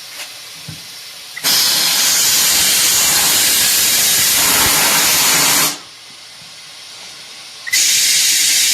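Compressed air hissing from a tire changer's air line in two long blasts. The first lasts about four seconds; the second starts near the end and is still going.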